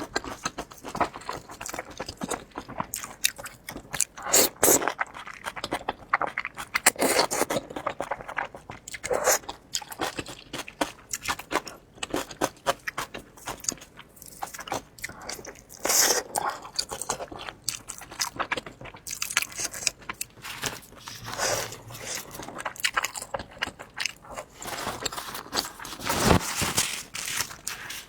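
Close-up eating sounds: a person biting into and chewing crunchy food, a dense irregular run of crunches with louder bites every few seconds.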